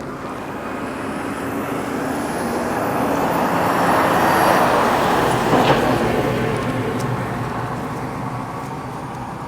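A road vehicle passing close by in traffic: its noise swells to loudest about four to five seconds in, then fades away.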